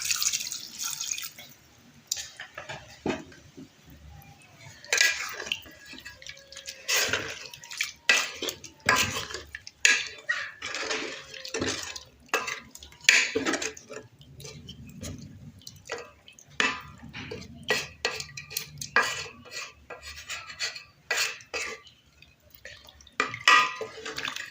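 A brief pour of water into a saucepan, then a spoon stirring a stew in the pot, with irregular clinks and scrapes against the pan.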